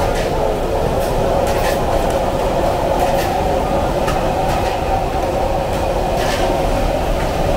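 Steady, loud roar of a busy hawker-stall kitchen, with a few short clinks scattered through it.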